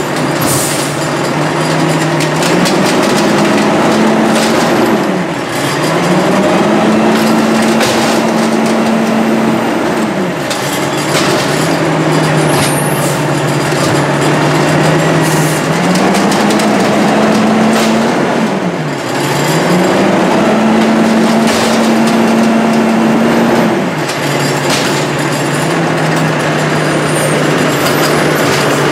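Diesel engine of an American LaFrance Condor side-loader garbage truck revving up from idle, holding, and dropping back four times, the revs driving the hydraulics of its Amrep HX-450 automated arm as it works the carts. A few short knocks sound over the engine.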